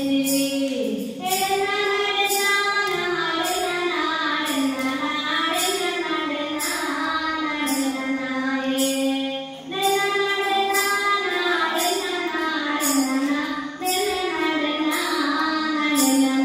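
Recorded song for the dance: a woman's singing voice carrying a flowing melody over a steady percussion beat of about two strikes a second, with a brief break about ten seconds in.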